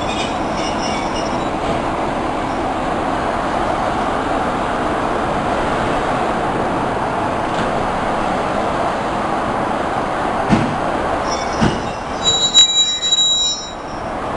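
Passenger coaches rolling slowly along a station platform: a steady rumble of wheels on rail, two knocks a little over a second apart, then a high brake squeal near the end as the train slows for its stop.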